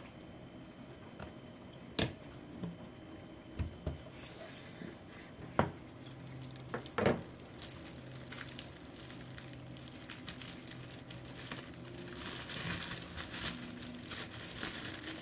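A few sharp clicks and knocks of plastic containers being closed and set on the counter, then a plastic bread bag of bagels crinkling as it is handled, louder near the end.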